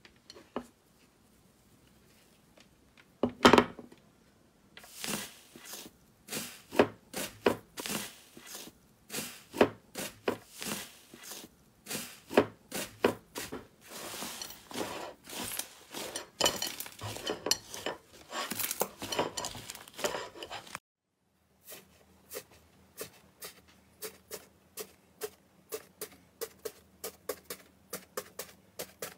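Foil-covered slime being pressed and squeezed by hand in a clear bowl: thin metal foil crinkling and crackling along with sticky slime pops, in quick irregular crackles, the loudest about three and a half seconds in. After a sudden cut about 21 seconds in, fluffy slime is poked in a plastic tub, a softer run of small regular pops and clicks over a low steady hum.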